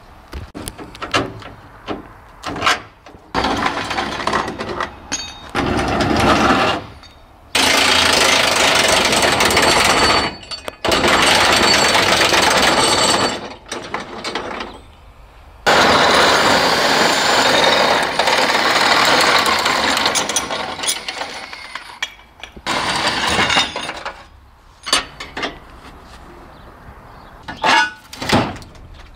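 Work on a wrecked car's metal bodywork: several long, loud runs of power-tool noise that start abruptly and hold steady for a few seconds each, with sharp metallic knocks and clanks between them and in a quick series near the end.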